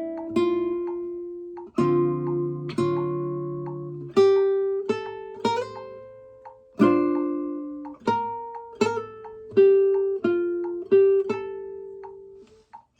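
Kazuo Yairi CY 130 nylon-string classical guitar played fingerstyle: a slow phrase of single plucked notes with a few full chords, each ringing out and fading before the next.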